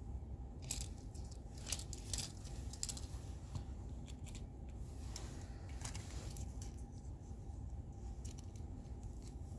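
Small plastic toy fingerboards and their packaging being handled: scattered light clicks and rustles, in clusters, over a steady low hum.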